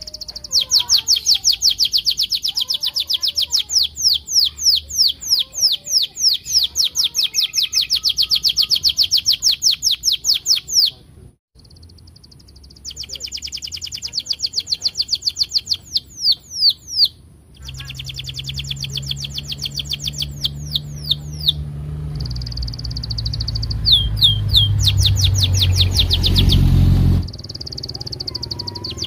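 Domestic canary singing long rolling trills of fast, evenly repeated high chirps, broken by a few short pauses. A low rumble builds underneath in the second half and cuts off suddenly near the end.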